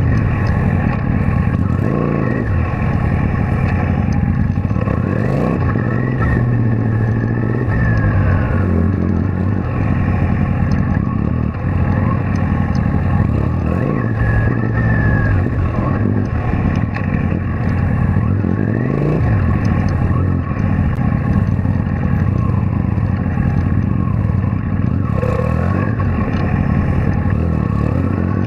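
Kawasaki Vulcan VN800 V-twin motorcycle engine running under way, its revs rising and falling several times as the bike accelerates and changes gear.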